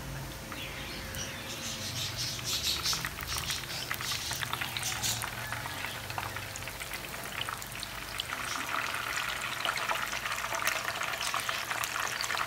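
Hot oil sizzling and crackling around breaded pizza rolls deep-frying in a pan, a dense patter of tiny pops. It swells about two seconds in and again over the last few seconds.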